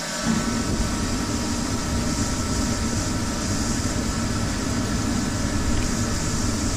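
30 kW diesel forced-air space heater running steadily: an even rushing of its fan and burner over a low hum, starting suddenly.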